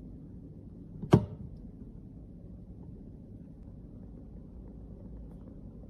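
A single sharp click or tap about a second in, over a low steady background hum.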